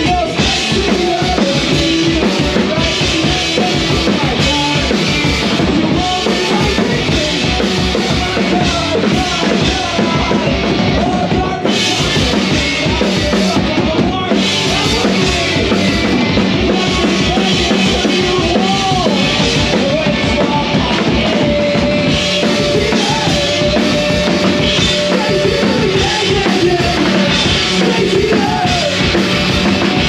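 Punk rock band playing live and loud: electric guitars and bass over a driving drum kit. A guitar holds one long note about two-thirds of the way through.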